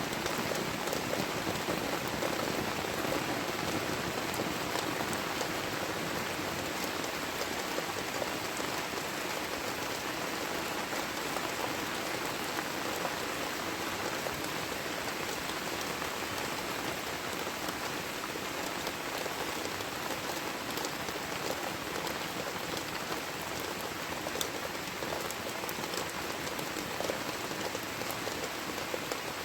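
Heavy rain falling steadily, with many individual drop hits heard through the even hiss.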